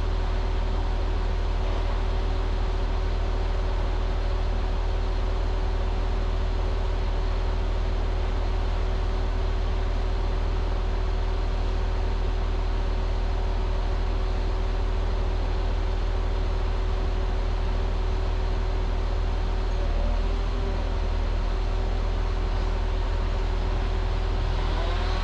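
Diesel engine of a converted Rottne H20 forestry machine running at a steady speed, with a steady whine over a deep hum.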